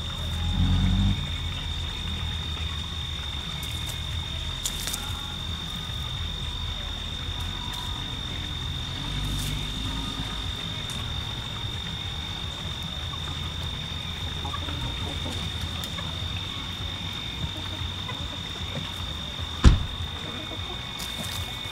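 Steady high-pitched trill of calling insects, one unbroken tone. A brief low rumble comes about a second in, and a single sharp click near the end is the loudest sound.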